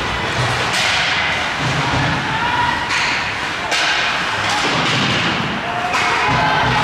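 Ice hockey play: a steady hiss of skates on the ice, broken by three sharp knocks of stick and puck, about a second, four seconds and six seconds in.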